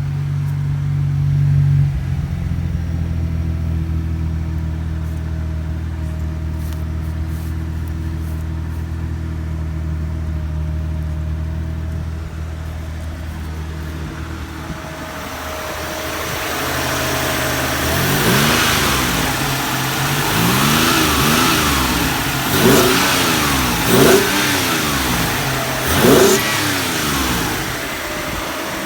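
The freshly rebuilt 1993 Mitsubishi 3000GT SL's 3.0-litre V6 idling steadily, then revved in a series of quick rises and falls over the second half, the strongest three close together near the end. It runs with what the owner takes for an exhaust leak.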